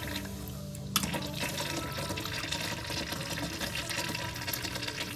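Vortens Austral urinal flushed through its exposed flush valve: a sharp click about a second in, then water rushing into the bowl for about four seconds, easing off near the end.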